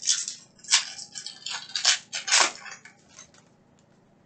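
Wrapper of a basketball trading card pack crinkling and tearing as it is ripped open by hand, in a run of crisp bursts that die away about three seconds in.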